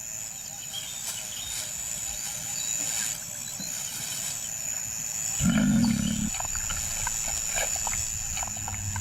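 A lion growls once, low and short, about five and a half seconds in. A steady high-pitched tone hums in the background throughout.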